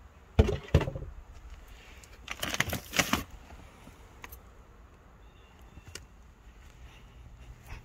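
Plastic bag of dried mealworms being handled and shaken. Two sharp knocks come about half a second in, then a crinkling rattle of plastic and dry worms around three seconds in, followed by a few faint ticks.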